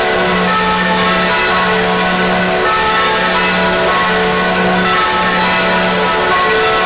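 Church bells ringing continuously, several bells overlapping so their tones run together without a break.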